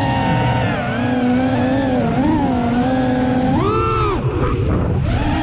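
FPV quadcopter's brushless motors and propellers whining, picked up by the onboard action camera, the pitch wobbling up and down with the throttle. Near four seconds in the whine surges up in pitch and drops away, is briefly faint, then picks up again.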